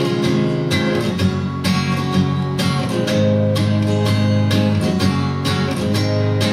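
Acoustic guitar strummed in a steady rhythm, about three strokes a second, its chords ringing on between strokes.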